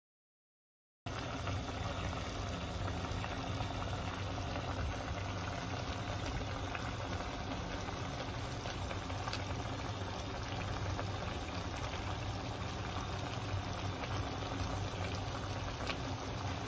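Bitter gourd and beef stew simmering in a pan: a steady bubbling of the cooking liquid, starting about a second in, with a couple of faint pops.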